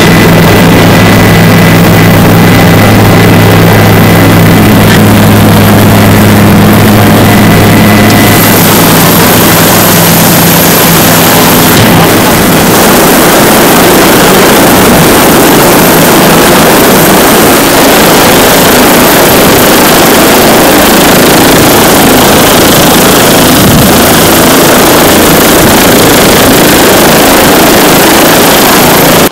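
Helicopter engine and rotor noise, very loud and unbroken. For the first dozen seconds it is a steady low hum with several fixed tones, then it turns into a loud, even rushing noise.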